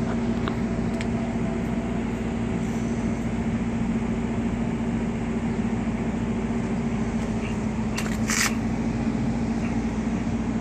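A steady mechanical hum with one constant low tone throughout, and a brief rustle about eight seconds in.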